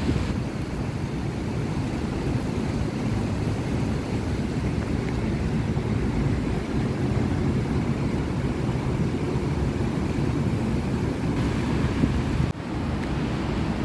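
Wind buffeting a phone's microphone: a steady low rumble that dips briefly about twelve and a half seconds in.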